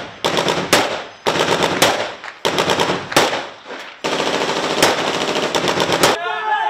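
AK-pattern assault rifle firing on full automatic in several short bursts, ending with a longer burst of about two seconds.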